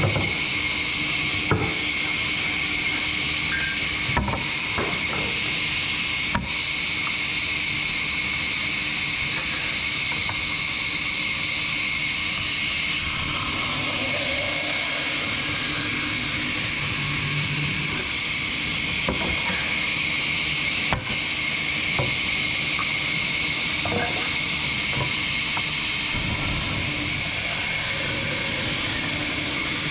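Large vertical band saw ripping a log lengthwise: a steady hissing cut of the blade through the wood over the machine's steady hum and high whine, with a few sharp knocks.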